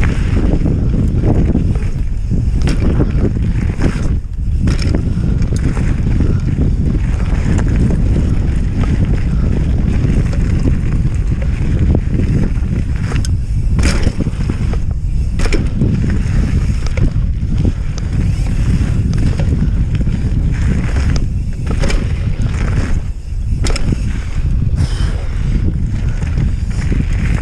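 Heavy wind buffeting on an action camera's microphone as a mountain bike rides fast down a gravel trail, with tyres rolling over loose stones and the bike knocking and rattling over bumps.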